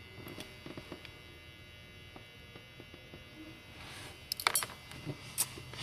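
Small metal clicks of Keil lock cylinder pins and springs being worked out of the housing, sparse at first, with a few sharper clicks about four to five and a half seconds in, over a steady faint hum.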